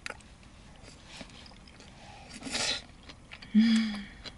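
A person slurping in a bite of spicy tteokbokki, a short burst about two and a half seconds in, then a short low hum lasting about half a second.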